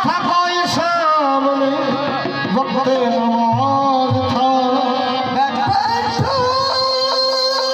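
Live qawwali: a male lead voice sings a wavering, ornamented line over sustained harmonium chords, with hand-drum strokes.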